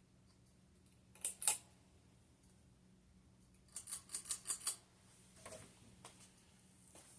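Sharp mechanical clicks from the switches of a Hunter Infiniti ceiling fan being worked: a double click just after a second in, then a quick run of about five clicks around four seconds in, as the fan is reversed and set to low. A faint steady hum runs underneath.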